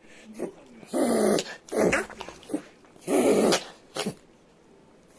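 Shiba Inu reverse sneezing: a run of loud, rasping snorts drawn in through the nose, about four long ones with a few shorter ones between. Reverse sneezing is a spasm of the soft palate, here set off by temperature changes, and the vet says it is harmless once it settles.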